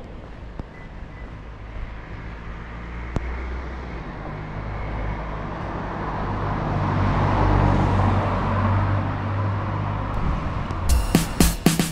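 Street ambience with a low rumble and a car passing by, the tyre and engine noise swelling to a peak about two-thirds of the way through and then fading. Background music with a sharp beat cuts in near the end.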